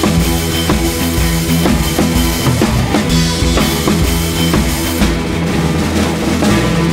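Background music: a track with a drum kit playing a steady beat.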